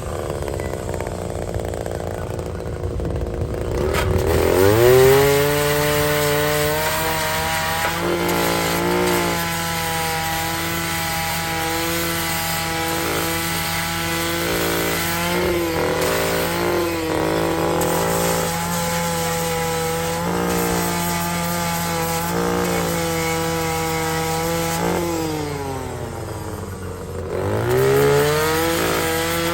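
Power grinder sharpening the carbide teeth of a forestry mulcher head, its motor running with a steady whine. The pitch sags and recovers twice, about four seconds in and again near the end.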